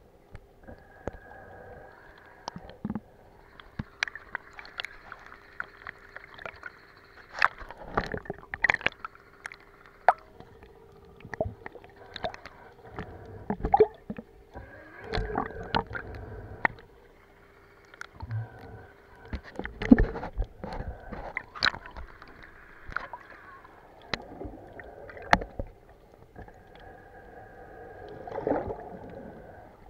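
Sound picked up by a camera held underwater: water gurgling and sloshing around it, broken by many irregular knocks and clicks. A faint steady hum runs under the first third.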